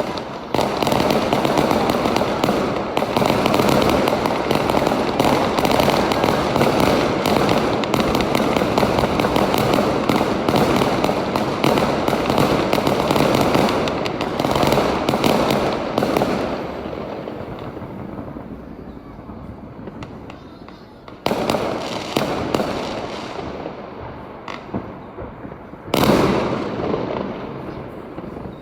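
Fireworks going off in a dense, continuous barrage of crackling bangs for about sixteen seconds, then fading. Two further sudden loud bursts follow, one about 21 seconds in and one about 26 seconds in, each dying away.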